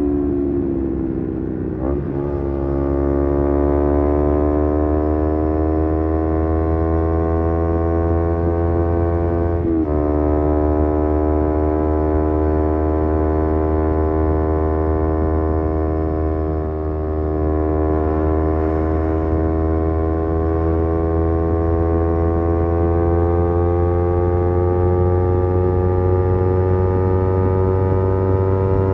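Kawasaki Z250 parallel-twin engine through a SeaPro aftermarket muffler, accelerating through the gears. The pitch climbs, breaks briefly at upshifts about two and ten seconds in, then settles into a steady cruise that slowly rises.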